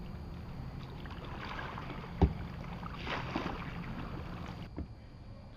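Kayak paddle strokes dipping and splashing in the river, two strokes in a row. A sharp knock about two seconds in is the loudest sound, and a lighter knock comes near the end.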